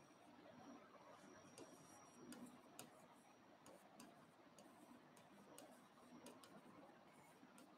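Near silence with faint, irregular clicks and taps of a stylus on a smartboard's glass screen as letters are written.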